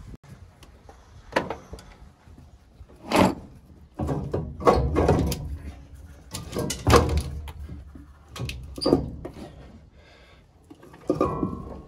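Irregular clunks, knocks and scrapes of metal engine parts and hand tools being handled during the teardown of a Holden 308 V8.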